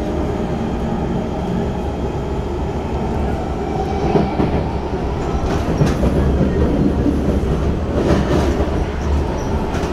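SMRT C151 metro train running, heard from inside the passenger car by the doors: a steady rolling rumble and hum, with a few sharp clacks from the wheels about four, six and eight seconds in.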